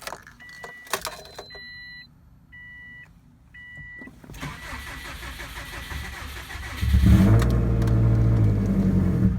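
A car's warning chime beeps a few times, then the 2004 Subaru STI's turbocharged flat-four is cranked on the starter. About seven seconds in, it catches and runs loudly for a couple of seconds. This is the first start attempt after replacing the oil control valves.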